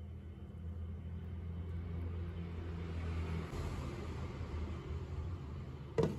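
A low steady rumble under a faint sizzle of corn cake batter frying in a nonstick pan. About six seconds in, a glass pot lid knocks down onto the pan with a brief clatter.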